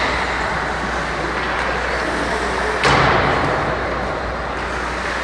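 Ice hockey game on a rink: a steady wash of rink noise, broken about three seconds in by one sharp, echoing bang from the play on the ice.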